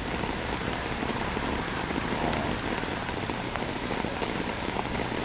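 Heavy rain falling and pattering on surfaces, a steady dense hiss with many small drop ticks.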